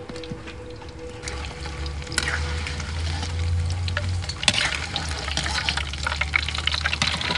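Battered fish pieces deep-frying in hot oil in a wok, sizzling and crackling, growing louder and denser from about two seconds in.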